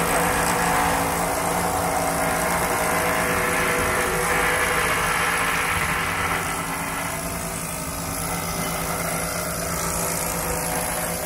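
Hand-held pneumatic hammer running with a steady rapid buzz as it taps down and flattens the stitched seams of a shoe upper on a heated last.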